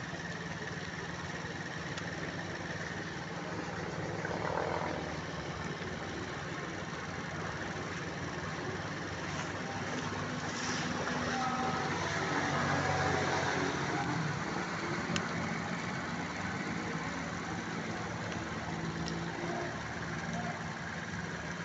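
Motor vehicle engines running at low revs in street traffic as a steady hum, swelling louder for a few seconds about halfway through.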